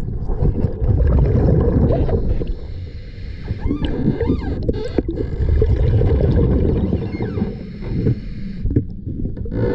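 Underwater noise picked up by a submerged camera beneath a catamaran hull: a steady low rumble of moving water, with a few short rising and falling whistles about four and seven seconds in.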